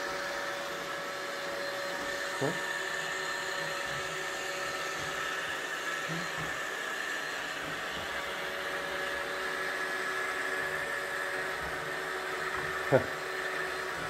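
iRobot Roomba 676 robot vacuum running as it drives across a wooden tabletop, a steady whir of its motors with a few held tones. A short sharp sound comes about two and a half seconds in, and a louder one near the end.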